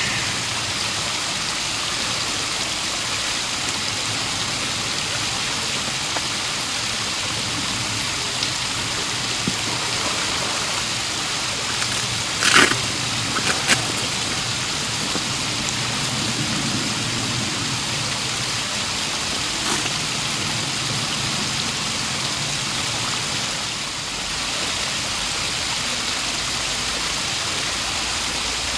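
Steady rush of running water, with two brief sharp sounds close together about halfway through.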